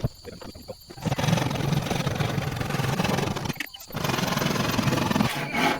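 A woodworking power tool running steadily on wood, starting about a second in and dropping out briefly near the middle before running on.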